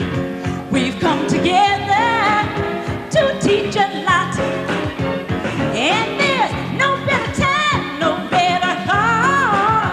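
A woman singing a song into a microphone with strong vibrato, over instrumental backing.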